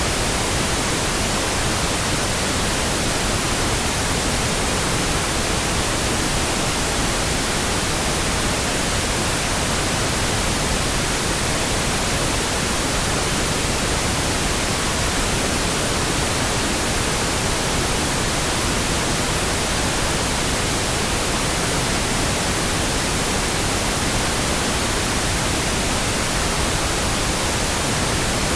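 Steady pink noise, an even hiss that does not change.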